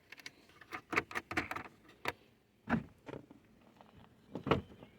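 Scattered light clicks and knocks of hand and tool work on a car taillight's mounting, as its two 8 mm nuts are taken off; a small run of clicks about a second in, then a few single knocks.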